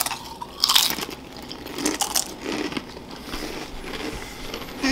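Barbecue Pringles potato crisps crunching as two people bite and chew them: a few sharp crunches in the first couple of seconds, then quieter chewing.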